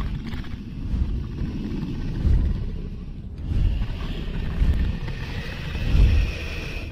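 Sound effect of a dragon's huge wings flapping while it hovers: deep whooshing beats about every second and a quarter over a low rumble. A higher hiss joins in about halfway through.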